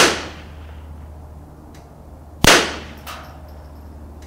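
Two .22 Long Rifle shots from a Marlin Model 60 semi-automatic rifle with a 21-inch barrel, one right at the start and one about two and a half seconds in. Each is a sharp crack with a short ringing tail. The standard-velocity Federal Target rounds clock about 1,090 feet per second over the chronograph.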